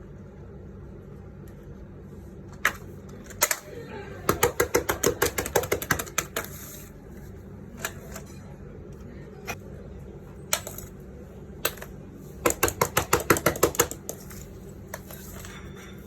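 Fidget toy being clicked: single sharp clicks, and twice a fast run of about six or seven clicks a second lasting one to two seconds.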